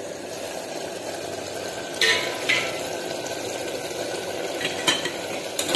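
Bottle gourd pieces simmering in a little water in a steel pot with the lid off, a steady bubbling, with a sharp metal clink about two seconds in and a couple of short clicks near the end.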